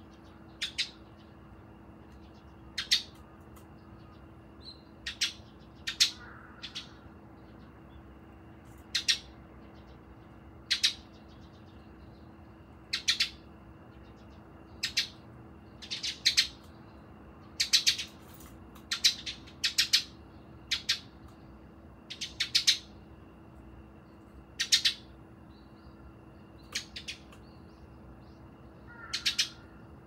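Eurasian tree sparrows chirping: short single chirps every second or two, now and then several in quick succession.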